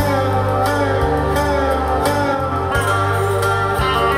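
Music with guitar playing through a pair of Onkyo D-77XG three-way floor-standing speakers. Long held bass notes change every second or so.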